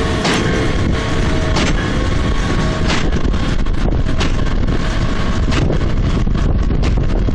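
Claas Arion 640 tractor and Quadrant 3300 square baler running, with a steady whine that fades about two seconds in and a regular knock roughly every second and a quarter. Heavy wind buffets the microphone.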